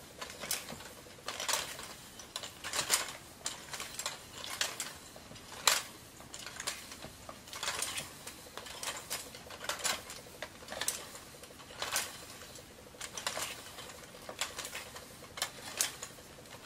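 Irregular clicks and rattles from a ring light being screwed onto its metal tripod stand, the plastic mount and stand parts knocking and ticking about once or twice a second.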